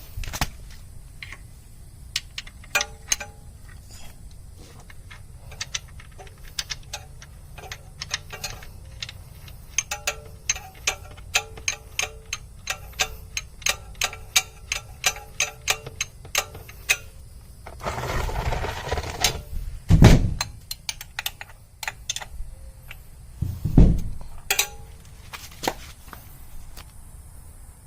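Repeated metallic clicks of a wrench tightening the oil drain bolt back into a motorcycle's oil pan, about two clicks a second. Later there is a rustle and two loud dull knocks, the louder one about two-thirds of the way through.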